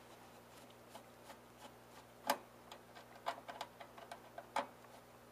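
Irregular light clicks and metallic taps of a long screwdriver working screws out of a home coffee roaster's sheet-metal housing. The sharpest click comes about two seconds in, and another comes near the end.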